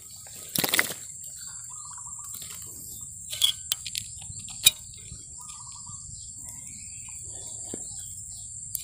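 A steady high insect drone with two short bird trills, about a second and four seconds in. It is broken by a burst of rustling near the start and a few sharp clicks from handling in the grass, the loudest of them around the middle.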